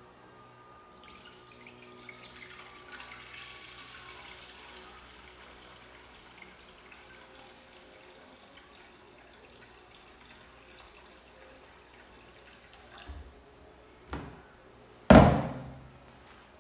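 Milk poured in a steady stream from a jug into a saucepan, splashing and gurgling as the pan fills, loudest in the first few seconds. Near the end come a few knocks, one of them loud.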